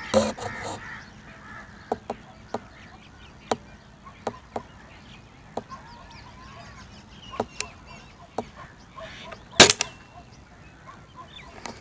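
A single shot from a spring-piston air rifle, one sharp crack near the end, is the loudest sound. Before it come a few faint scattered clicks.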